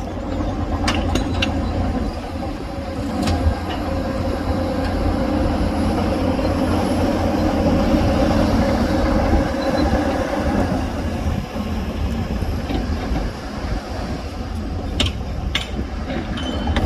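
Diesel engines of heavy earthmoving machinery running steadily, with a few sharp knocks about a second in, around three seconds in, and near the end.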